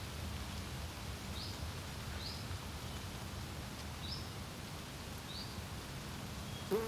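Wind rumbling steadily on the microphone, with a small bird giving short, high chirps about once a second. Right at the end a brief rising buzz begins as an insect flies close.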